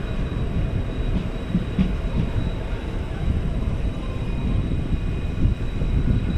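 Indian Railways passenger train running on the rails, heard from aboard: a steady rumble with a few scattered clicks from the wheels.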